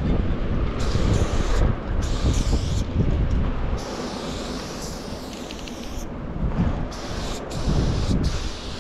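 Aerosol spray paint can hissing in repeated bursts of about one to two seconds, with short breaks between them as the nozzle is pressed and released. Rumbling wind noise on the microphone is loudest in the first few seconds.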